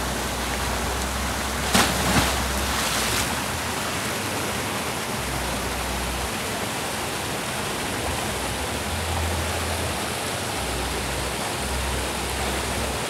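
Steady rush of a small river waterfall, with a splash about two seconds in as a man dives head-first into the pool below it.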